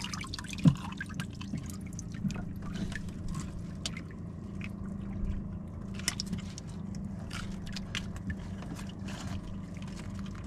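Water lapping and dripping, with scattered small splashes and clicks, over a low steady hum.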